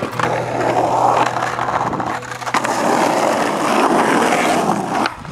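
Skateboard wheels rolling over paving stones, a steady gritty rumble that dips briefly about two seconds in and cuts out near the end.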